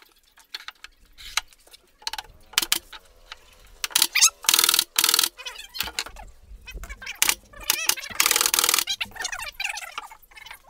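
Wooden knocks, rattles and scraping as plywood parts are handled and fitted into a subwoofer cabinet under construction, with two longer scraping or rushing noises of about a second each, a few seconds apart.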